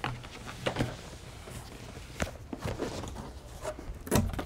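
Large cardboard box being opened by hand: its lid and flaps scraping and rubbing, with scattered light knocks and a louder thump near the end.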